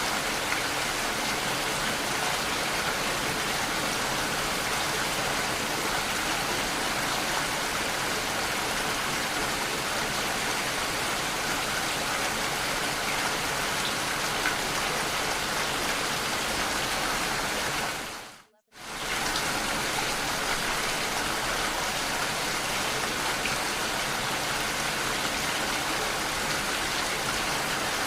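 Steady rain noise, an even hiss with no distinct drops or voices. About two-thirds of the way through it dips almost to silence for half a second, then resumes unchanged.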